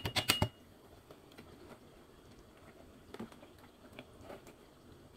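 Clear plastic clamshell container shaken and tapped over a pot to empty out curry leaves: rapid crackling plastic clicks that stop about half a second in. After that come a few faint soft taps and rustles as the leaves are spread over the prawns by hand.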